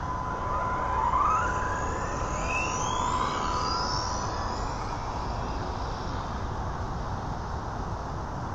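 Electric motor whine of a Tamiya TT02 RC car on a full-throttle speed run, rising steadily in pitch as the car accelerates, then fading away after about five seconds. A steady high tone runs underneath for the first six seconds or so, over a constant background hiss.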